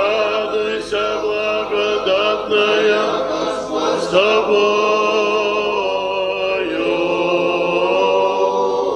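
Orthodox monks singing a church chant together, men's voices without instruments, moving through a few short phrases and then holding one long chord through the second half.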